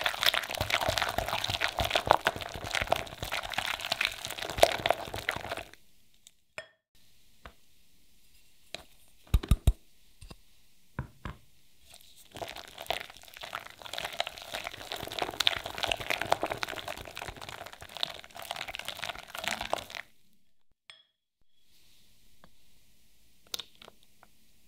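Wire whisk beating a cream cheese batter in a glass bowl: rapid, continuous scraping and clicking of the wires against the glass. The whisking stops about six seconds in, a few soft knocks follow, then the whisking resumes for about eight seconds before stopping again.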